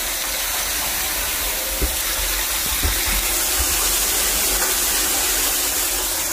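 Water from a submersible pump's outlet pipe pouring in a steady gush into a plastic water tank, splashing onto the water below. The cleaned pump is delivering water again.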